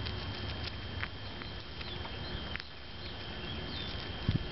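White-tailed antelope squirrel husking sunflower seeds, with scattered soft clicks and cracks of shells being split. A dull low thump comes near the end.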